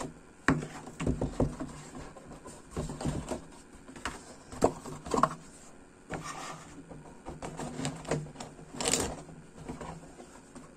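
Handling noise from a box-in-box architectural scale model being lifted apart by hand: irregular taps, knocks and scrapes of the pieces, with a sharper knock about nine seconds in.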